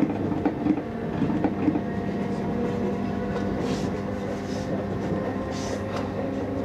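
Class 312 electric multiple unit running, heard from inside the carriage: a steady electrical hum from the train with the wheels clicking over rail joints, the clicks thickest in the first second or two. Two short rushes of hiss come about halfway through and again near the end.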